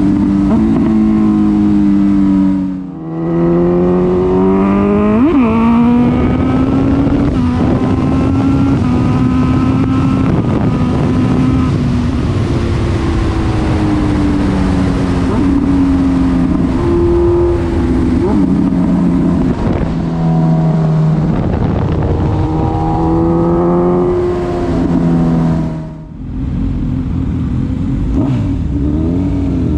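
Honda CB1000R's inline-four engine running under way, its pitch climbing and falling as the rider accelerates and eases off. The sound drops sharply twice, about three seconds in and near the end, then climbs again. Heard through a GoPro's built-in microphone.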